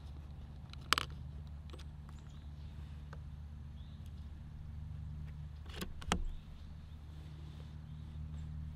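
A CZ Varmint MTR .22 LR bolt-action rifle being handled and fired: a sharp crack about a second in and a quick double snap about six seconds in, with faint clicks between, over a steady low hum.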